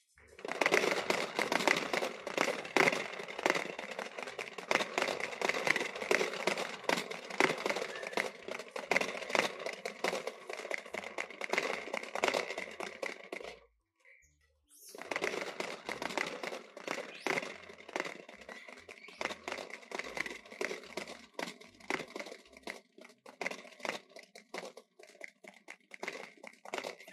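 Dense crinkling and crunching as a baby monkey handles and eats butter popcorn, in two long stretches broken by a pause of about a second roughly halfway through.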